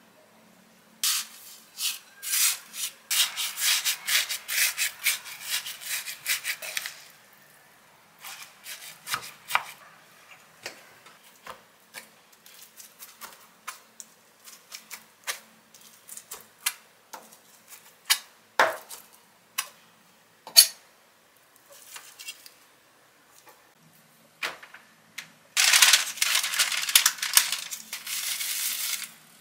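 Seasoned rice being stirred in a glass bowl, a dense run of scraping strokes. Then a chef's knife slices a thin egg crepe, tapping the cutting board at irregular intervals. Near the end a plastic packet of gimbap seaweed crinkles as it is opened.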